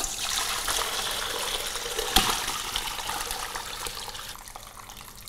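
Chicken broth poured from a stainless steel stockpot into a metal strainer set in a large stainless bowl: a steady splashing pour that tapers off toward the end, with a single sharp clink of metal about two seconds in.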